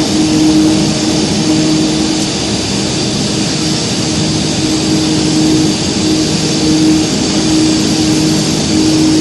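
A loud, steady machine drone: a low hum under an even hiss.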